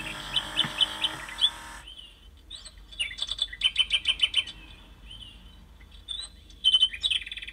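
Electronic bird chirping from the NeXtime Nightingale cuckoo clock as its white bird figure comes out of its door. The chirps come in three groups: a short run near the start, a quick trill about three seconds in, and another run near the end.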